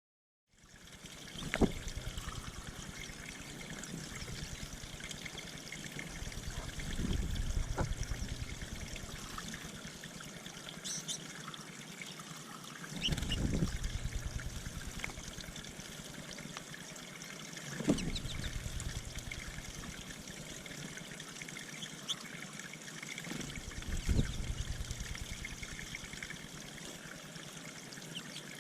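Water trickling steadily into a backyard bird pond, with a few faint bird chirps. Several low thumps and swells come and go.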